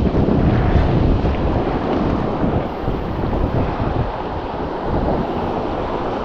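Wind buffeting the microphone over the rush of surf on the beach. The gusting rumble is strongest early on and eases slightly after about two seconds.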